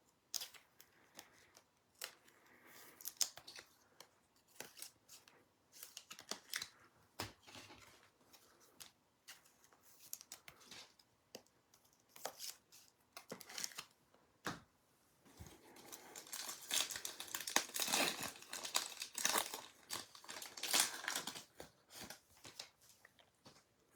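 Scattered light clicks and taps of trading cards being handled, then, about two-thirds in, the crinkle and tear of a foil card-pack wrapper being opened.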